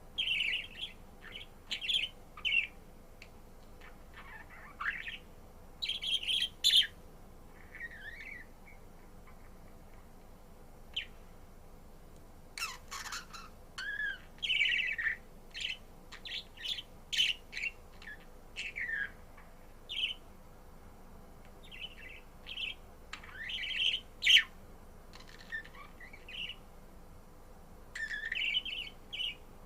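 Pet budgerigar chirping and warbling in short, irregular bursts of quick notes, separated by pauses of a second or more.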